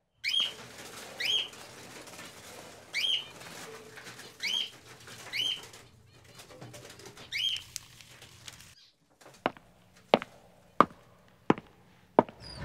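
A small caged songbird chirping: six short, rising calls a second or two apart, over a faint low hum. After a sudden drop to quiet about two-thirds of the way in, five hard, evenly spaced footsteps on a floor.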